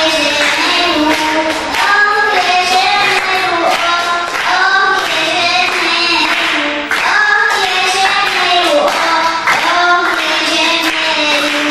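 A young girl singing an Arabic madih, a devotional song in praise of the Prophet, solo into a handheld microphone, in long held notes that bend and waver in pitch.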